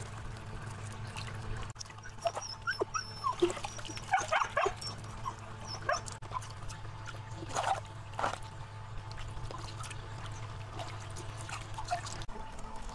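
A dog whimpering in short, high calls, in two spells a few seconds apart, over a low steady hum.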